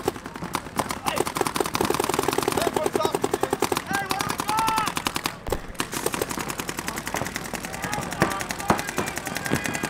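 Several paintball markers firing fast strings of shots that overlap into a continuous rattle, with a brief lull about five and a half seconds in. Players shout over the shooting.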